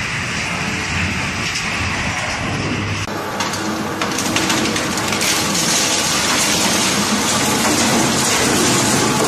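Industrial shredder running with a steady heavy-machinery drone. About three to four seconds in, a dense crackling, grinding clatter of material being torn apart comes in and gets louder.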